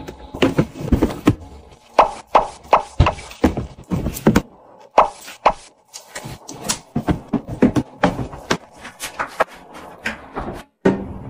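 Irregular knocks, taps and fabric rustles from hands packing rolled clothes into a plastic drawer and hanging garments on plastic hangers in a wardrobe.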